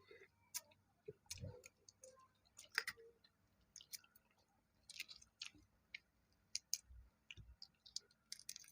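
Faint, close-miked eating sounds of chewing balut (boiled fertilized duck egg): irregular soft clicks and wet mouth smacks.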